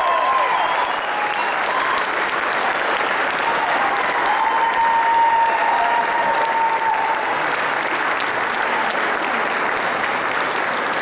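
Audience in an auditorium applauding steadily at the end of a performance, with one long call rising out of the crowd from about four to seven seconds in.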